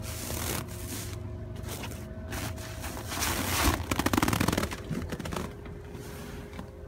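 Handheld-camera handling noise and rustling, with a quick rattling run of clicks about halfway through, over a steady low hum.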